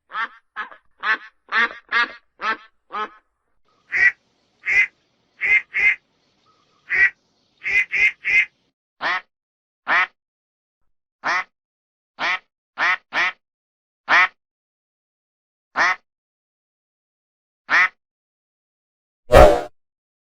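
A duck quacking repeatedly: a quick run of about three quacks a second for the first few seconds, then single quacks spaced further apart, slowing to about one every two seconds. Near the end comes one louder, deeper sound.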